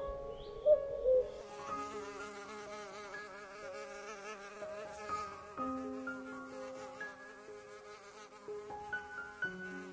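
A common cuckoo gives one two-note "cuck-oo" call about a second in. Then a fly buzzes steadily, wavering slightly in pitch, over soft sustained background music.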